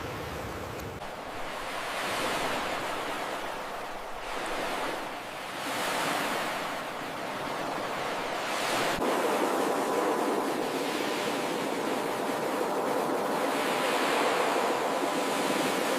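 Ocean surf, waves breaking and washing in, swelling and easing every few seconds and louder in the second half.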